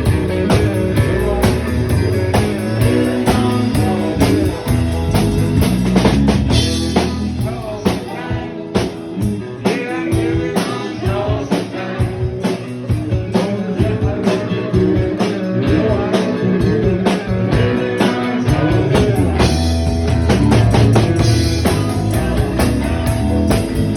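A band playing blues-rock with drums and guitar. The bass drops away about a third of the way in and comes back with the full band near the end.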